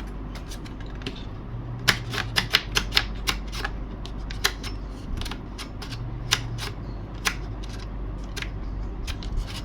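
Sharp, irregular plastic clicks, single and in quick runs: the newly fitted spring latch on an RC plane's cockpit canopy being snapped and worked by hand.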